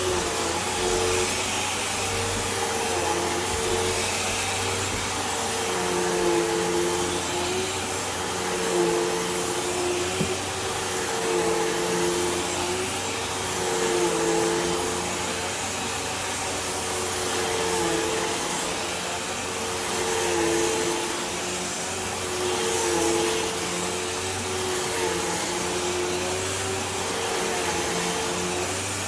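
Hoover Elite Rewind Plus upright vacuum cleaner running steadily. Its motor whine wavers slightly in pitch and loudness every two or three seconds.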